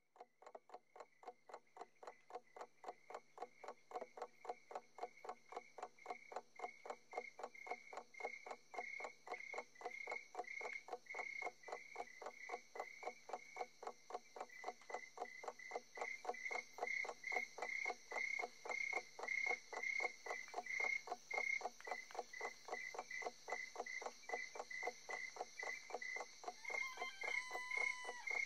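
Crickets chirping in a steady, even rhythm of about three chirps a second, fading in over the first few seconds; a brief different call sounds near the end.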